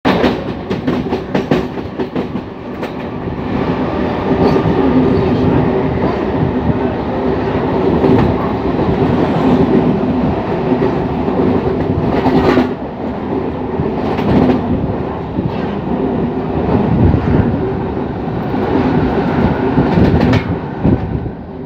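Siemens EMU suburban local train accelerating, heard from its open doorway: a steady hum with the rumble of the wheels and sharp clacks as they pass over rail joints, several in quick succession in the first few seconds and a few more later.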